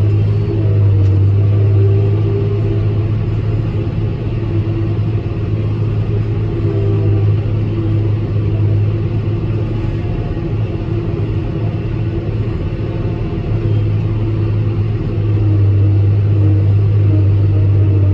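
John Deere 6150R tractor and Kongskilde 1260 trailed forage harvester working at full load chopping grass, a steady low drone heard from inside the tractor cab. It eases a little through the middle and comes back stronger about fifteen seconds in.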